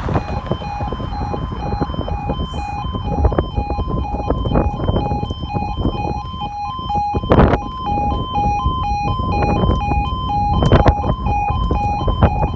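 UK railway level crossing warning alarm sounding as the crossing activates: an electronic two-tone signal switching rapidly back and forth between a lower and a higher note. Wind rumbles on the microphone underneath, with two louder gusts.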